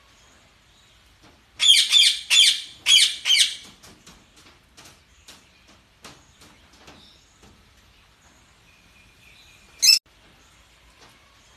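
Parakeets chirping and warbling. A burst of four loud, quick chirpy calls comes about a second and a half in, followed by softer scattered chirps, then a single sharp call near the end.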